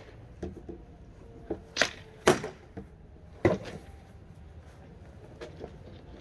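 Sword-and-shield sparring: sharp clacks of sword blows landing on wooden shields and blades. Three hard hits come about two seconds in, half a second after that, and at about three and a half seconds, with a few lighter knocks between.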